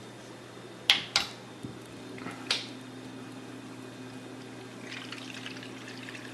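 Custom PC water-cooling loop running on its first fill: the pump hums steadily while water and trapped air gurgle through the tubes and reservoir, as air is still being worked out of the loop. Three sharp clicks come in the first few seconds.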